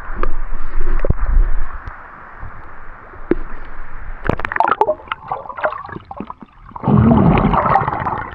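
Water splashing and gurgling close to the microphone in a rock pool, in uneven bursts: a heavy low rumble at the start, scattered sharp splashes midway and a loud gurgling surge near the end.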